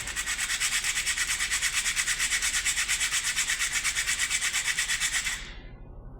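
Rapid, even rasping of abrasive rubbing on a motorcycle front brake part, about ten strokes a second, while the noisy brake is being cleaned. It stops about five seconds in.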